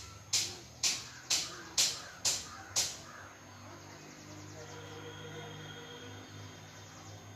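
Quick, sharp sniffs through the nose, about two a second, as a person tries to bring on a sneeze; the sniffing stops about three seconds in.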